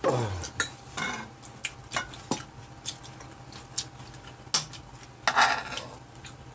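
A metal spoon and chopsticks clinking and scraping against a frying pan and bowls as noodles are scooped out, a string of sharp clicks with the loudest about four and a half seconds in.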